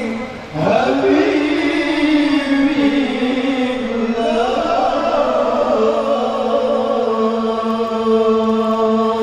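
Chanting voices in long held notes, with a brief dip about half a second in and a stop near the end.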